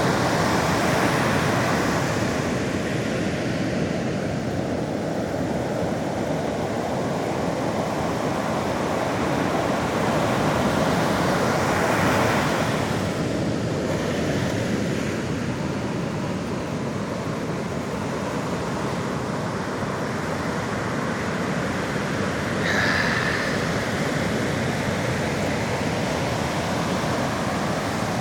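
Sea surf washing on the shore, a steady rush that swells three times.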